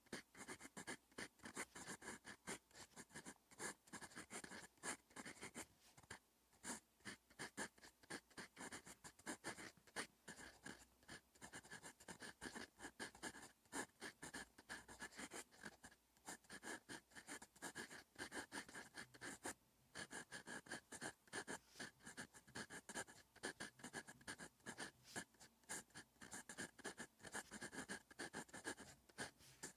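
Fountain pen's metal nib scratching faintly across paper, writing Korean characters in a steady run of short, quick strokes.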